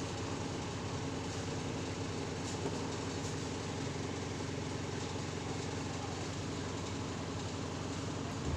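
Steady low hum of an idling engine, even and unbroken.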